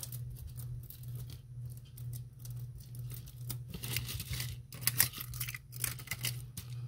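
Costume jewelry clicking and rattling as hands sort through a heap of beaded necklaces, chains and metal pieces: a run of small irregular clinks, busiest from about four seconds in.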